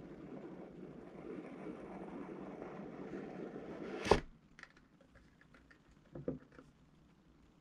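Packaging being handled during a keyboard unboxing: rustling and scraping for about four seconds, ended by one sharp knock. A few light clicks and a softer knock follow.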